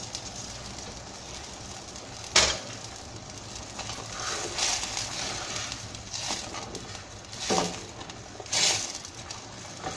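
Sauce boiling in a stainless steel pan, stirred with a spoon that scrapes and swishes through it in several strokes over the second half. A sharp click about two and a half seconds in.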